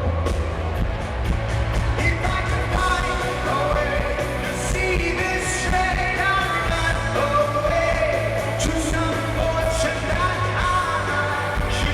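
A rock band playing live, with a sung melody over a steady bass and drums with cymbals.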